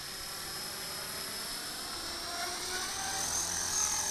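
Electric RC model helicopter flying, its motor and rotors making a steady high-pitched whine that rises in pitch about three seconds in.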